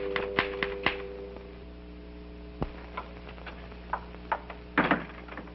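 Typewriter keys clacking in quick, even strokes that stop about a second in, then a few scattered keystrokes and a short flurry near the end. A held music chord sounds under the first typing and fades away.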